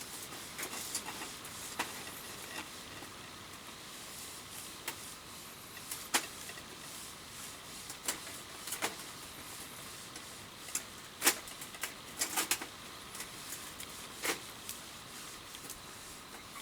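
Wood campfire crackling: irregular sharp pops and snaps over a steady hiss, the loudest pops about six and eleven seconds in.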